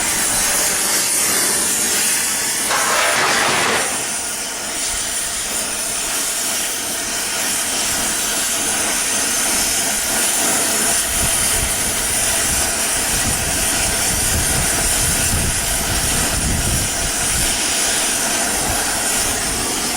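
Gas torch burning with a steady hiss as it heats rivets. The hiss gets louder and brighter for about a second around three seconds in, and a deeper rumble joins partway through.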